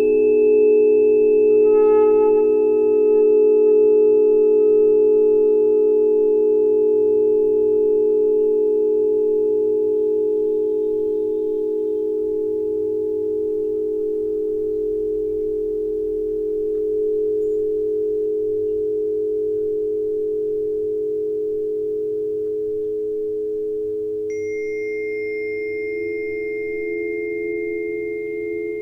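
A cluster of steady, pure ringing tones held together and slowly fading, with fresh higher tones added about two seconds in and again near the end.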